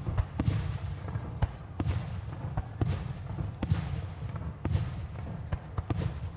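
Aerial fireworks shells bursting in quick succession, about eight or nine sharp bangs at irregular half-second to one-second intervals, over a continuous low rumble from the barrage.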